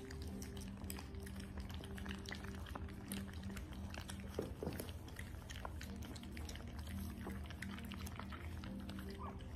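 A litter of French bulldog puppies eating raw food together from one bowl: a busy patter of wet smacking, lapping and chewing clicks over a steady low hum.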